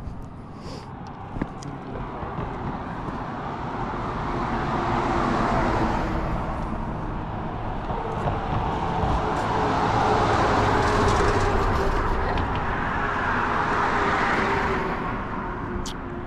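An engine running as it passes, swelling louder twice and easing near the end, with a low hum under a rushing noise.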